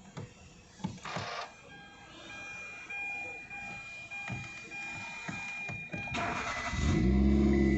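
Hyundai Grand i10 push-button start: a few clicks and faint steady high tones, then about six seconds in the starter cranks briefly and the engine catches on the first crank and keeps running. The clean first-crank start shows that the intermittent no-start fault is cured now that the ECM has been repaired.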